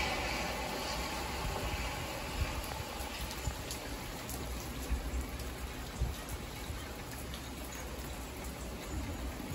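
Steady hiss of rain and of tyres on a wet freeway heard from inside a moving car, over a low road rumble, louder at first and easing off over the first couple of seconds, with a few light knocks.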